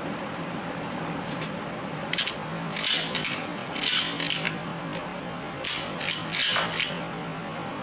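Plastic toy disc-shooter gun being worked and fired: its trigger and rotating disc magazine make short bursts of ratcheting plastic clicks, about five clusters starting around two seconds in.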